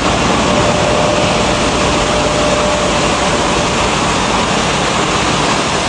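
Maize milling plant machinery running with a loud, steady noise, with a faint thin whine over it for a couple of seconds.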